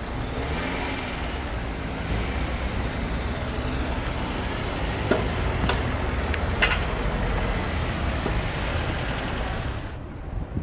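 Road traffic: steady noise of cars on the road, with an engine note rising and falling near the start and a few sharp clicks about halfway through.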